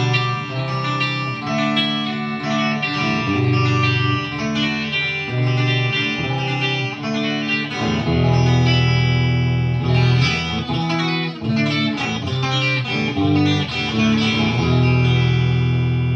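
PRS SE Custom 24 electric guitar played through a Marshall JCM2000 amp: picked chords and single-note lines, with a quicker run of notes about halfway through and a chord left to ring near the end.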